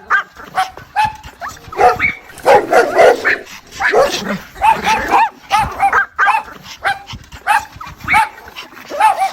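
A mother dog calling her puppies: a rapid run of short, high-pitched yips and whines, several a second, with a denser, lower stretch about a third of the way in.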